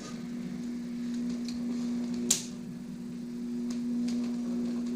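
Sound effect of an electrical laboratory machine, the kind used for a monster being brought to life: a steady electric hum with light crackling, and one sharp zap about two seconds in.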